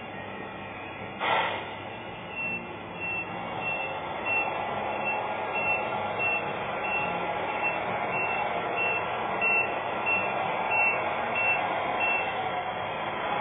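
RC model heavy-haul truck's reversing beeper sounding regular short high beeps at a steady pace, over the running noise of the model's drive. There is a short louder burst of noise about a second in.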